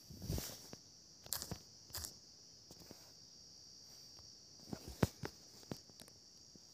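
Scattered faint taps and clicks of fingertips on a phone's touchscreen, picked up by the phone's own microphone, while typing a search and selecting an effect. There are small clusters about a second in, around two seconds, and around five seconds, the loudest near five seconds, over a steady faint high hiss.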